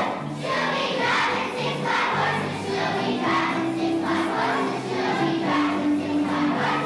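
Children's choir singing a song, many young voices together over held, steady notes.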